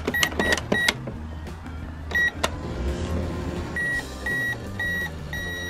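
Toy microwave oven beeping as its keypad is pressed: three quick beeps, then another as it is started about two seconds in, followed by its steady running hum. Near the end it gives three short beeps and a longer one, the signal that the pretend cooking is done.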